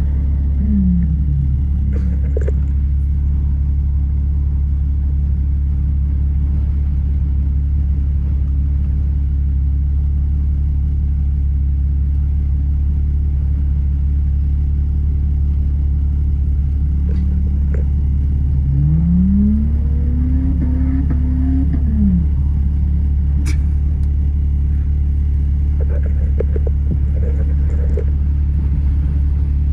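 A Jeep's engine running at a steady low rumble, heard from inside the cab during off-road crawling. A short drop in engine pitch comes just after the start, and about two-thirds of the way through the engine revs up, holds for a moment, then falls back. A few brief knocks come through along the way.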